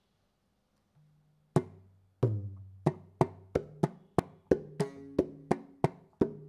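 Mridangam played solo, a beginner's lesson pattern: after about a second and a half of silence, single strokes start, ringing pitched strokes on the right head mixed with deep bass strokes on the left head. The first strokes are slower, then they settle into an even pulse of about three strokes a second.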